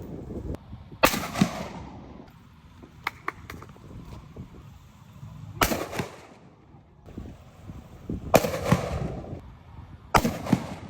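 Rifle shots: four sharp reports a few seconds apart, each trailing off in a short echo, with a few fainter clicks between the first two.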